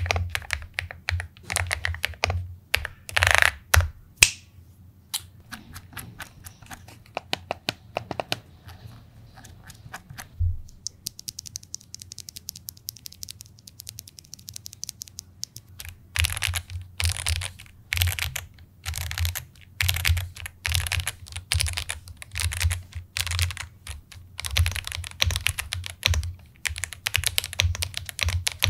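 Ajazz AK820 Max Plus 75% mechanical keyboard being typed on in a sound test, with fast runs of key clicks and clacks. A few heavier strokes come about three seconds in, and a lighter, quieter patter runs through the middle before full-speed typing resumes.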